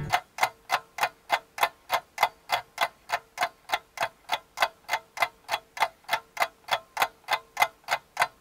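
Even, clock-like ticking, about three and a half ticks a second, over a faint steady hum.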